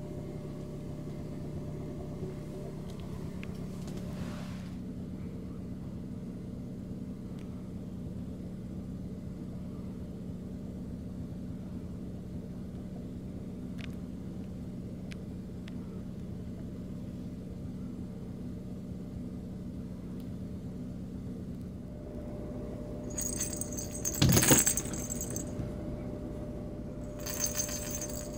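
A steady low hum for most of the time. Then, near the end, a small bell in a plush cat toy jingles as the toy is shaken, in two spells, with a louder clatter in the first.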